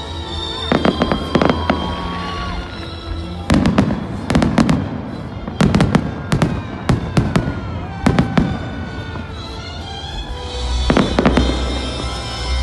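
Fireworks display: shells bursting in quick clusters of sharp bangs and crackles.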